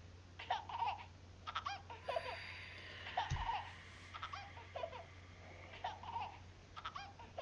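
Baby-like giggling and babbling from a doll in a horror film soundtrack, coming in short bursts about once a second over a low hum, with a single low thud about a third of the way in.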